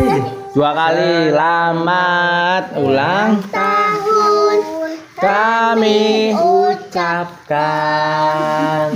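A song sung in a child's voice, in phrases with short breaks between them.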